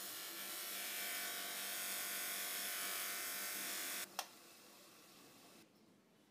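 A small brass part pressed against a spinning buffing wheel: a loud, even hiss of polishing for about four seconds that stops sharply when the part is lifted away. A sharp click follows, and the bench polisher's motor keeps running with a low hum.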